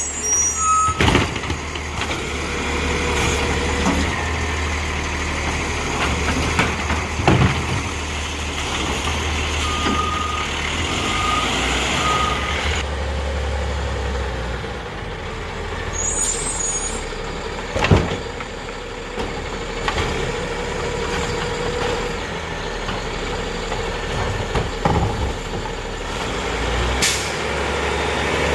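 2022 Autocar automated side-loader garbage truck with a Heil DP Python body working its route: the diesel engine runs steadily, with a few loud clunks from the truck. Air brakes squeal and hiss twice, and a short run of three beeps sounds about halfway through.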